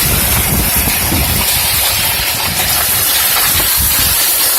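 Hailstorm: hail falling hard, a dense steady hiss with irregular low thuds underneath.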